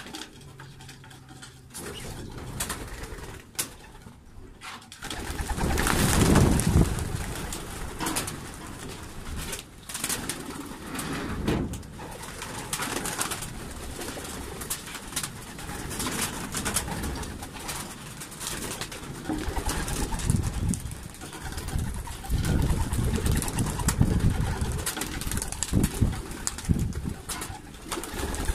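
Racing pigeons cooing at the loft entrance, with short bursts of wing flapping as birds take off and land. Heavy low rumbles rise and fall through it, loudest about six seconds in and again later.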